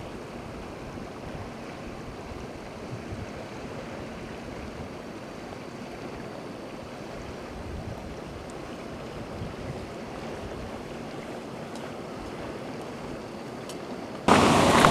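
Steady outdoor wind noise on the microphone, an even rush with low rumbles. Near the end it cuts abruptly to a much louder rush with a steady low hum.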